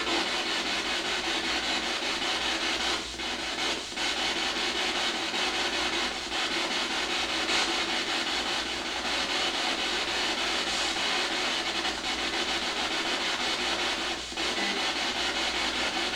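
Spirit box sweeping through radio stations and playing through an external speaker: a continuous rough static with a fast choppy flutter. It dips briefly a few times, around three to four seconds in and again near the end.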